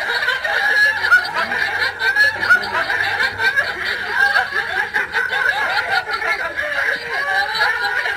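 People laughing: a continuous run of overlapping chuckles and snickers.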